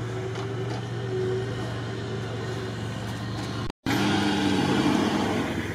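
Off-road SUV engine running steadily at low revs as the vehicle crawls through snow. After a cut about four seconds in, engine sound resumes, a little louder and rising slightly in pitch.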